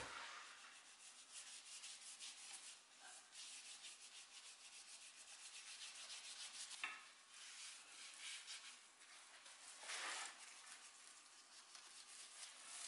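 Gloved fingers rubbing metallic paste wax into a tubular metal chair frame: a quiet, repeated brushing hiss of short strokes. A single sharp click about seven seconds in.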